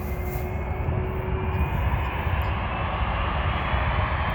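Boeing 737 jet engines running steadily, a continuous rushing engine noise with a faint steady tone that fades about a second and a half in.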